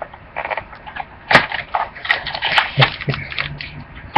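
Irregular crackling and crinkling of a trading-card pack's packaging being torn open and handled, with sharp little snaps among the rustling.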